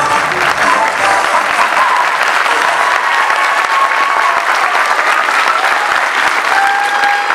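Audience applauding steadily, a dense clapping throughout.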